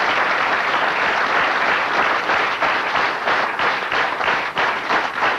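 Audience applauding steadily; the clapping becomes more uneven near the end.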